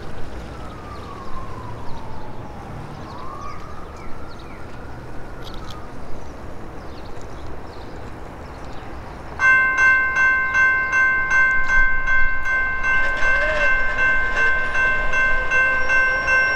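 Railroad grade-crossing signal bell starts up about halfway through and keeps ringing with rapid, evenly repeated strikes. It is activated by the approaching train. Before it there is only quieter outdoor background.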